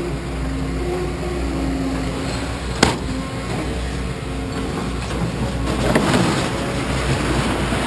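An engine running steadily at a scrapyard, with one sharp knock about three seconds in.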